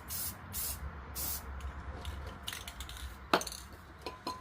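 Short hissing bursts from an aerosol spray can, three in the first second and a half, followed by a few light clicks and a sharp clink a little over three seconds in.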